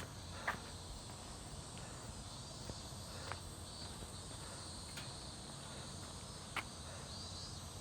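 Insects chirring steadily in the background over a low rumble, with a few sharp clicks at irregular moments.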